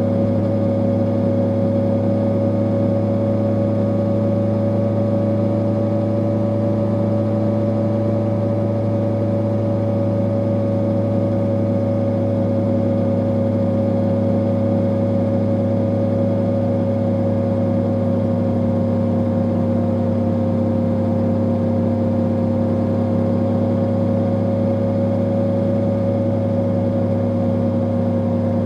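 Honda CB650R's inline-four engine on its stock exhaust, running at steady, almost unchanging revs with a constant hum and only a slight drift in pitch.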